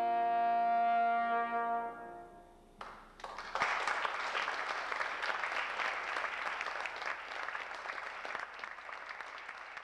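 Trombone holds the final long note of the sonata over a piano chord, cutting off about two seconds in. After a brief gap, audience applause starts and keeps going.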